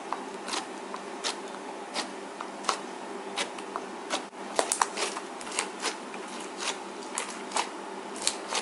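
Hands pressing, poking and folding a lump of thick, chewy green gum slime, giving sharp sticky clicks and pops about once or twice a second, with a quick run of several pops near the middle.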